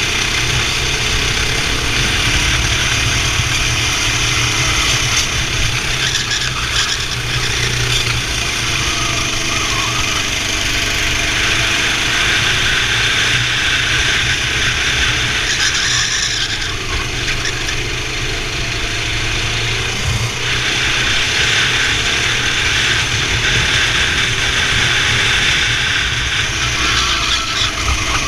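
Racing kart engine running hard, its revs repeatedly rising and falling, with a steady hiss over it.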